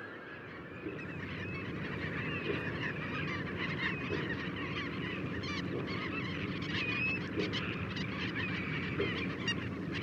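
A huge flock of migrating shorebirds calling together: a dense chorus of many overlapping short, chirping calls, with a steady low rumble beneath.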